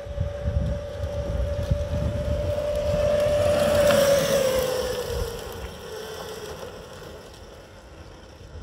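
Homemade 72-volt, 3000-watt electric go-kart passing by: a steady high whine from its electric drive grows louder as it approaches, peaks about four seconds in, then drops in pitch and fades as it drives away. Wind rumbles on the microphone throughout.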